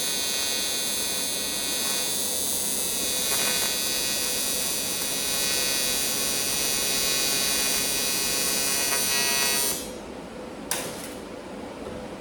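Aluminum welding arc buzzing steadily on a patch over a worn-through spot in an aluminum boat hull, cutting off suddenly near the end. A single sharp click follows shortly after.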